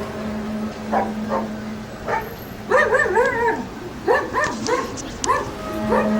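A dog barking and yelping in a quick run of short calls in the middle. A steady low hum is heard before the calls and returns near the end.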